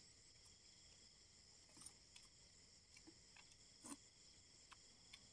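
Near silence with a faint steady chorus of night crickets. A few faint clicks come about two and four seconds in.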